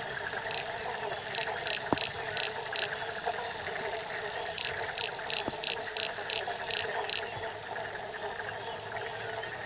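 A dense, steady frog chorus with light rain falling on the lagoon water. Two runs of short, higher-pitched calls come through it, repeated about three a second, one near the start and one a little past the middle.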